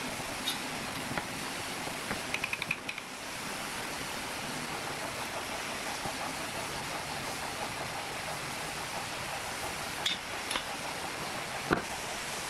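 Steady background hiss with a few light clicks and taps of hand tools on a wooden workbench: tape measure, pen, steel rule and square being handled and set down on the wood. There is a quick run of small clicks about two seconds in, and a few sharper taps near the end.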